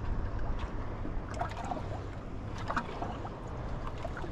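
Small waves lapping and slapping against a boat hull, in short clusters of splashes over a steady low rumble.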